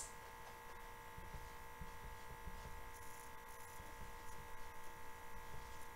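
Faint steady electrical hum of several high tones, with a few soft scratches of a dry-erase marker writing on a whiteboard about three seconds in.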